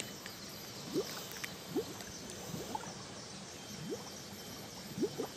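Steady flow of water in an irrigation channel, with several short rising chirps about one a second.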